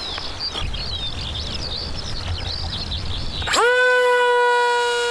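Birds chirping, then about three and a half seconds in an RC flying wing's electric motor and propeller spin up sharply and hold a steady, high-pitched whine.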